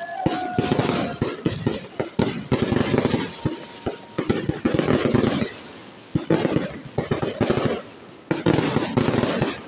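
Aerial fireworks bursting overhead in rapid runs of sharp bangs and pops. The bursts come in clusters about a second long with short lulls between them.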